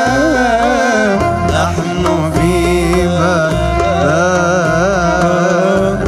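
A man singing a devotional Arabic nasheed into a microphone in a florid, ornamented style, his pitch bending and trilling without pause, over a steady instrumental accompaniment with a low bass.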